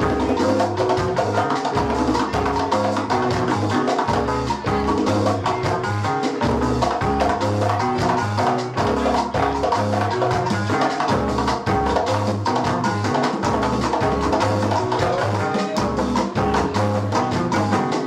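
Live Latin-soul band playing a steady groove: a repeating bass line under drum kit and Latin hand percussion such as timbales and congas, with keyboard and guitar.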